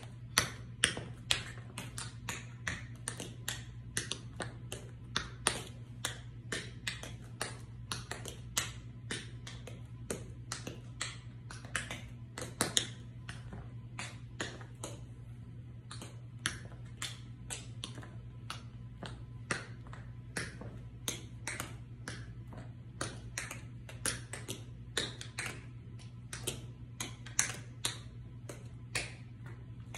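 Metal taps on patent-leather tap shoes striking a hard floor: quick, uneven runs of sharp clicks, several a second. A steady low hum sits underneath.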